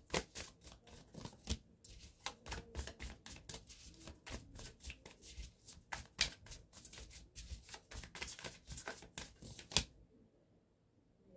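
A deck of divination cards shuffled by hand: a long run of quick card slaps and flicks that stops near the end.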